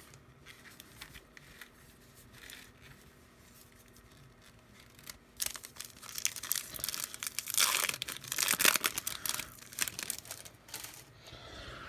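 Foil wrapper of a baseball card pack being torn open and crinkled in irregular bursts, starting about halfway through and loudest near the end.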